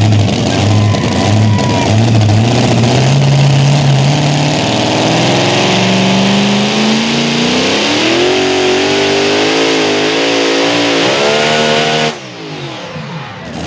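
Supercharged engine of a super modified two-wheel-drive pulling truck running hard under load. The revs pulse at first, then climb steadily for several seconds, and the engine cuts off abruptly about twelve seconds in.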